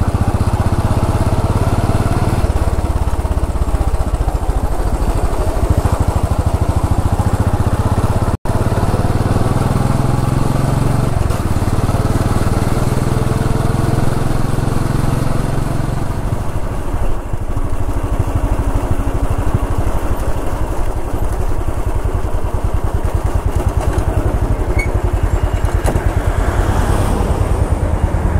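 Royal Enfield Bullet 500 EFI's air-cooled single-cylinder engine running on the road, its exhaust beating in rapid, even pulses over wind noise. The note eases off somewhat past the middle, and a split-second dropout comes about a third of the way in.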